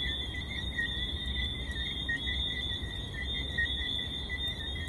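Crickets chirping in a continuous night chorus, two steady high shrill tones, over a faint low rumble.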